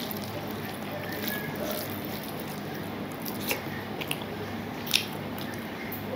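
A person eating by hand: chewing and wet mouth sounds, with fingers squishing rice and dal on a steel plate. A few short sharp clicks stand out, the loudest about five seconds in.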